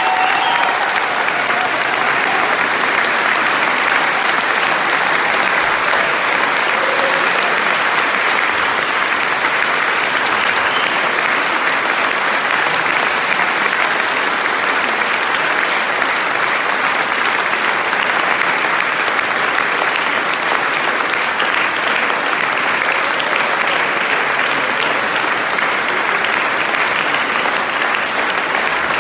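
Long, steady applause from a large audience clapping.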